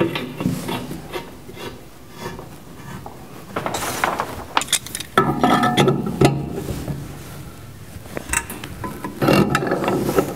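Tongue-and-groove pliers gripping and turning a stainless steel pipe union on the bottom port of a stainless steel UV disinfection chamber: metal scraping and clicking in several bouts of about a second each, with quieter gaps between.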